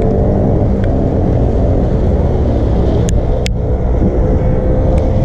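Wind buffeting the camera microphone: a loud, steady low rumble, with two sharp ticks about three seconds in.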